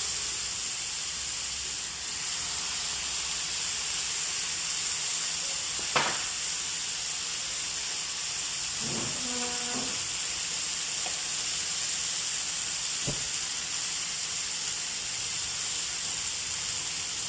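Chicken fillets sizzling in hot butter in a cast-iron skillet, a steady hiss. Two light knocks come about six and thirteen seconds in.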